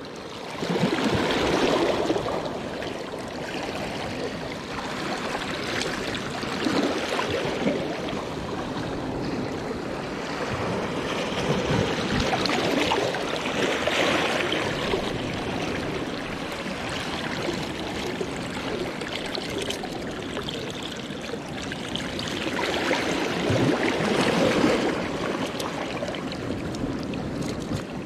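Small waves washing and lapping over shoreline rocks, an even watery rush that swells louder about two seconds in and again near the end.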